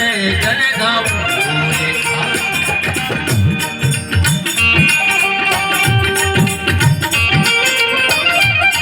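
Instrumental break in an Indian folk song: a steady drum rhythm with rattling percussion under a sustained melody line that slides between notes.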